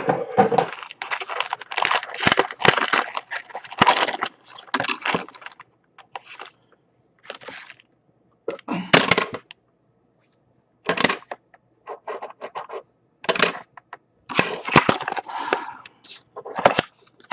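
Plastic packaging crinkling and rustling in irregular bursts with short pauses, as a foil blind-bag toy packet is opened and a small toy is unwrapped from its clear plastic.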